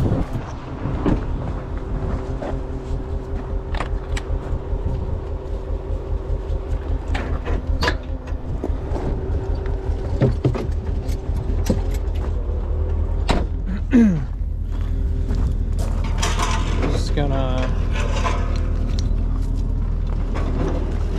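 Duramax diesel tow truck idling steadily, with a door pushed open at the start and scattered clicks and scuffs of footsteps on gravel. A brief falling squeak sounds about two-thirds of the way through.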